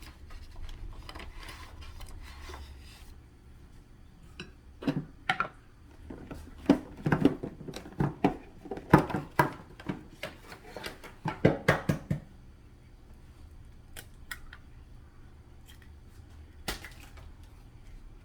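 Kitchen prep sounds: a quick, irregular run of sharp clicks and knocks from about four to twelve seconds in, then a few isolated clicks.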